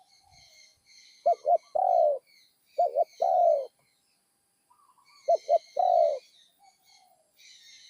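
Spotted dove cooing, three times. Each call is two or three short notes followed by one longer coo. Small birds chirp faintly in the background.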